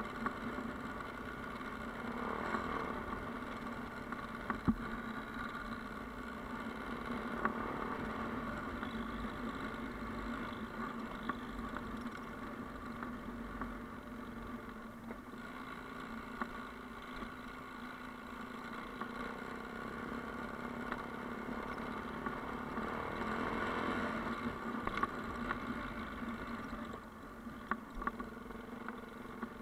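Motorcycle engine running at a steady pace while riding up a gravel track, heard from a bike-mounted camera. The engine note swells slightly now and then, with a few sharp knocks from the rough surface.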